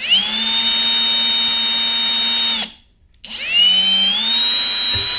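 Cordless drill driving a small pilot bit into a pottery wheel's aluminum wheel head. It makes two runs of a couple of seconds each with a brief stop between. Each time the motor whine rises as it spins up, then holds steady.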